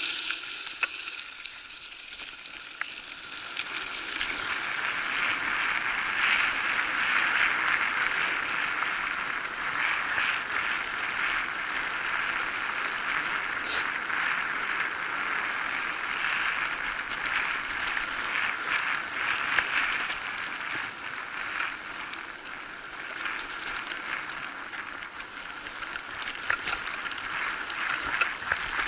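Electric bike riding along a dirt forest track: steady tyre noise with frequent small rattles and knocks from the bike over the bumps. Quieter for the first few seconds, then steady.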